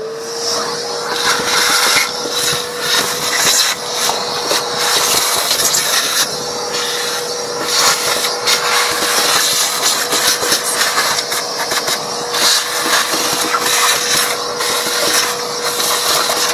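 A small electric motor runs with a steady, even-pitched whine, under rough scraping and rattling as the crusted, corrosion-caked battery tray is cleaned out.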